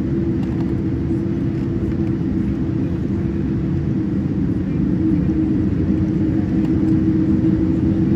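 Cabin noise inside a Boeing 787-9: a steady low rumble from its GE GEnx-1B engines and the moving airframe, with a steady hum, getting a little louder about five seconds in.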